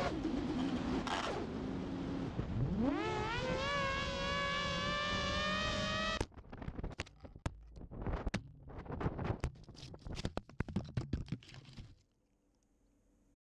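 FPV quadcopter's motors and propellers whining through its onboard camera; the whine dips, then climbs steeply about two and a half seconds in as the throttle goes up. About six seconds in the whine cuts off suddenly and gives way to irregular scrapes, cracks and knocks as the quad crashes and tumbles through brush. Near silence near the end.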